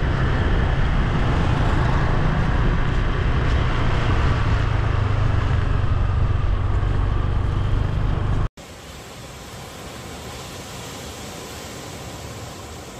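Steady roadside traffic noise, a loud low rumble with hiss from motor vehicles on the road. About eight and a half seconds in it cuts off abruptly, leaving a much quieter steady hiss.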